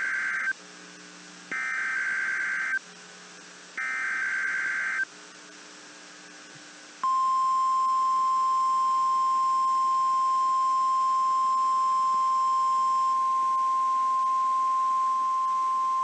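NOAA Weather Radio SAME alert header: the end of one raspy digital data burst, then two more, each about a second long and a second apart. After a two-second pause comes the steady single-pitch 1050 Hz weather radio warning alarm tone, held for about nine seconds, sounded as part of a weekly test.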